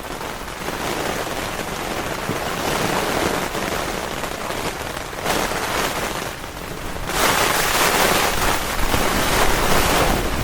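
Heavy rain driven by strong wind in a severe thunderstorm, a steady rushing noise that swells louder about seven seconds in.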